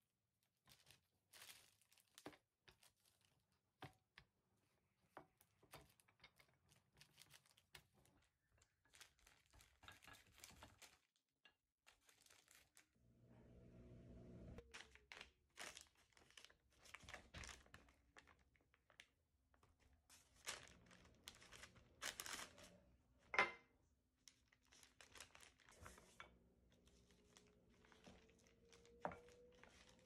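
Faint, scattered crinkling and rustling of the sheet lining the counter as hands and a wooden rolling pin flatten and roll up bread dough, with one sharper knock about two-thirds of the way through.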